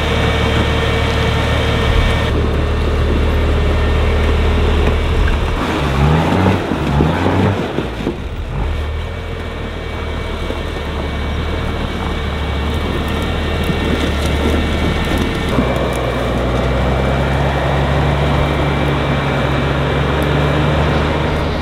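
Off-road vehicles driving along a dirt trail, engines running with a steady drone. Around six to eight seconds in, an engine revs up briefly.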